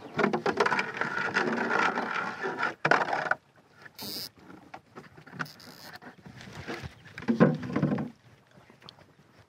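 Hands rummaging for and handling small outboard parts and tools: rustling and small clicks and knocks, busiest in the first three seconds, with a louder clatter around seven seconds in and two short high hisses in between.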